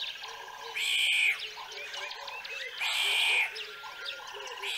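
A layered chorus of animal calls: many short chirps and calls repeating throughout, with two louder, harsher calls of about half a second each, some two seconds apart.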